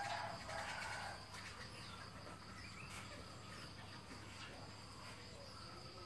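Faint rural background of a steady high insect drone with scattered short bird chirps. A cat's meow trails off in the first second.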